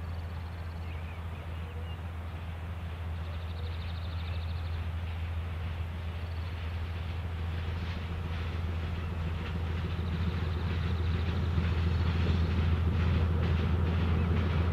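Narrow-gauge diesel locomotive and its train approaching: a low engine hum grows steadily louder, and from about halfway in the clatter of wheels over the rails joins it and grows.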